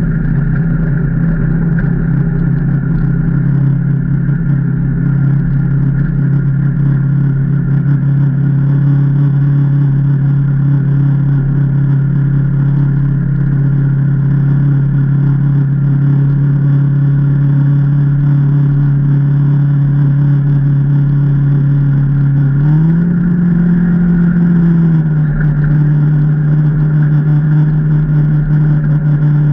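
Can-Am Maverick Trail 800's Rotax V-twin engine running at a steady speed. Its pitch rises briefly about two-thirds of the way through as the throttle opens, then settles slightly higher than before.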